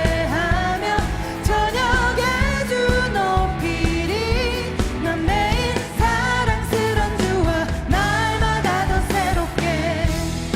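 Contemporary Korean praise and worship song: a lead singer's melody over a full band with a steady beat.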